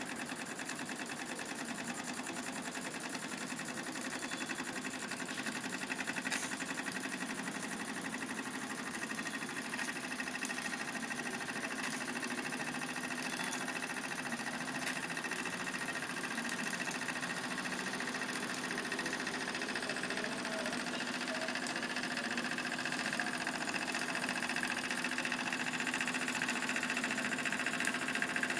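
Jensen live-steam toy engine running steadily under steam from its miniature boiler: a fast, even mechanical clatter over a constant hiss.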